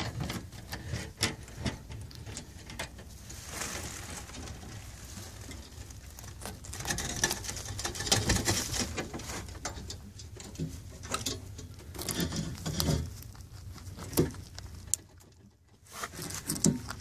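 Rabbits crunching a raw carrot: quick, irregular crisp bites and chewing, with some rustling in between and a short lull near the end.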